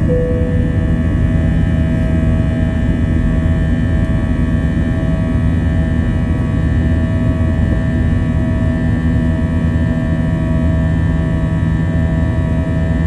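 Airliner cabin noise of an Airbus A321 climbing after takeoff: its jet engines running steadily, a loud low rumble with several steady humming tones over it.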